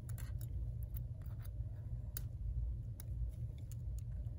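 Small, irregular clicks and ticks of metal tweezers picking at the front camera and sensor flex cable of an iPhone 8 Plus screen assembly, over a low steady hum.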